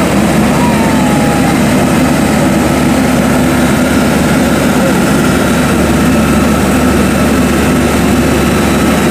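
Yanmar YH850 crawler combine harvester's diesel engine running steadily and loudly as the machine travels on its tracks.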